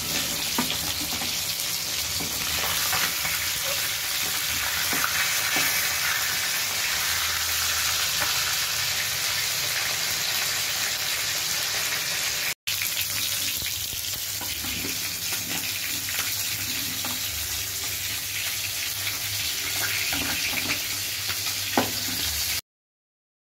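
Masala-coated whole fish shallow-frying in hot oil in a pan: a dense, steady sizzle and crackle. It breaks off for an instant about halfway and stops abruptly shortly before the end.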